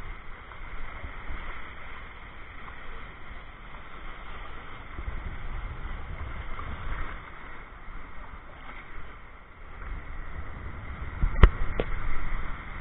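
Small surf waves washing and lapping in shallow sea water, with a low rumble that comes and goes. Near the end, two sharp knocks, the first the loudest.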